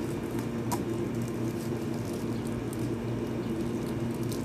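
Steady low hum with faint light clicks and crinkles of clear plastic packaging being handled.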